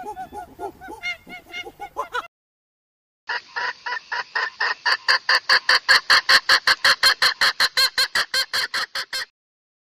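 A run of short, quick calls cuts off suddenly about two seconds in. After about a second of silence, poultry give a fast, even series of loud calls, about five a second, for some six seconds.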